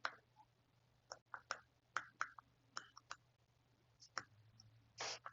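Faint, irregular short clicks and taps of a pen or stylus writing, about a dozen over the few seconds, over a faint steady low hum.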